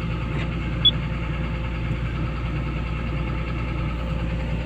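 An engine running with a steady idling hum throughout, and a single short, high electronic beep about a second in, like a key press on the excavator's monitor panel.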